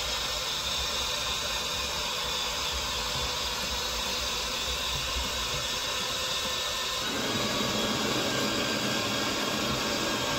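Steady hiss, with a deeper rumble joining in about seven seconds in.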